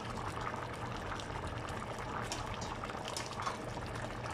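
Fish stew simmering in a stainless steel pan: a steady low bubbling with a few faint scattered pops.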